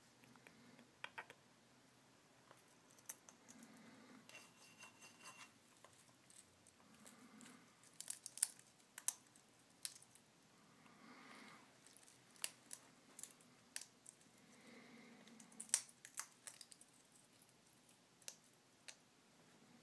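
African grey parrot eating from a ceramic food dish: faint, irregular sharp clicks and crunches as its beak picks up and cracks seeds and bits of dried fruit, with soft rustling of the shredded paper underfoot.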